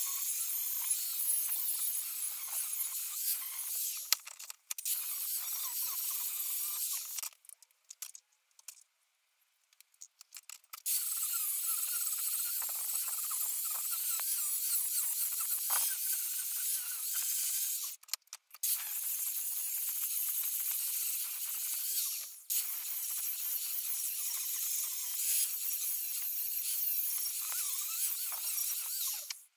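Angle grinder with a flap disc grinding the edges of a steel plate: a steady high hiss of abrasive on metal. It stops for a few seconds about a third of the way in and drops out briefly twice more later, as the disc comes off the work.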